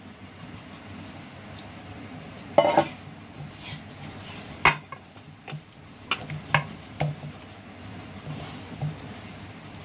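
Hands mixing flour and water into dough in a metal bowl: a soft rubbing with several sharp clinks against the bowl, the loudest about two and a half and five seconds in, then a few quicker ones.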